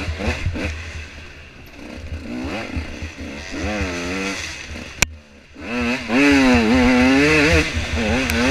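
Dirt bike engine revving up and down as the throttle is worked, with wind rumble on the helmet microphone. About five seconds in there is a sharp knock and a brief drop in engine sound, then the engine revs hard and loud.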